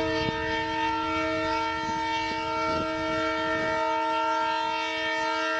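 Diesel locomotive horn of an Indian Railways passenger train sounding one long unbroken blast, a chord of several steady tones, over the low rumble of the train running along the track.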